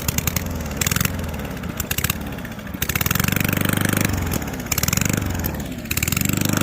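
Straight-piped lawn mower engine with its muffler removed, revved up and down several times, its rapid firing loud and harsh.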